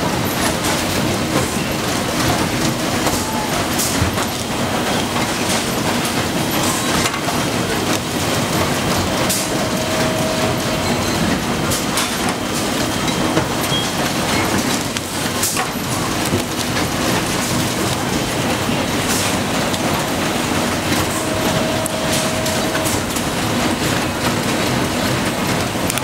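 Factory-floor noise of a motor stator production line: a steady, dense clatter of running machinery over a low hum, with scattered sharp clicks. A short tone sounds twice, about ten seconds in and again near the end.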